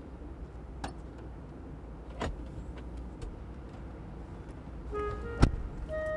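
Car door opened and then shut with one loud slam about five seconds in, after a couple of faint clicks. A steady low hum runs underneath, and a few musical notes begin just before the slam.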